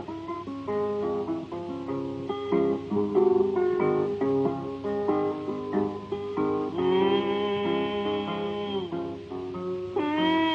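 Background music: acoustic blues guitar, plucked, playing without vocals, with a couple of long held notes near the middle and again near the end.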